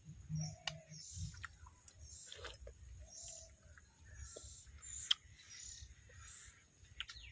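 Small birds chirping in short, scattered calls, with a few sharp clicks; one loud click about five seconds in.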